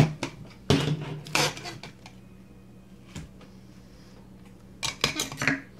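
Plastic salad chopper being handled and taken apart: its lid and clear plastic bowl give sharp clicks and knocks, one at the very start, a few more in the first second and a half, and a quick cluster near the end.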